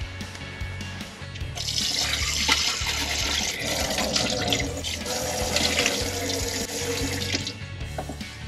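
Water running from the small galley sink tap of a campervan and splashing as hands scoop it up to wash a face. It starts about a second and a half in and stops about a second before the end, over background music.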